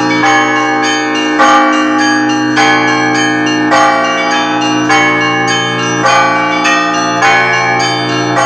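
Russian Orthodox church bells rung together in a festal peal: small bells struck in quick, rhythmic patterns over the long hum of the larger bells, with a heavier accented stroke about every second.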